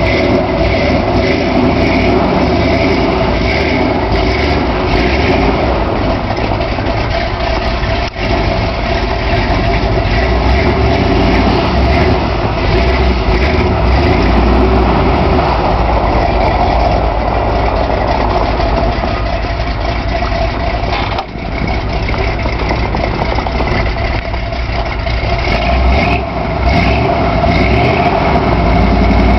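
Ford 460 big-block V8 of a 1978 Bronco running loudly after a cold start, from a battery that had gone dead over weeks of sitting. The sound is steady, with brief dips about eight seconds in and again about twenty-one seconds in.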